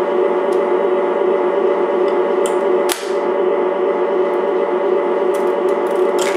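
Lionel ATSF operating boxcar's electric unloading mechanism buzzing steadily while the car cycles its door and crewman figure, with a sharp click about three seconds in.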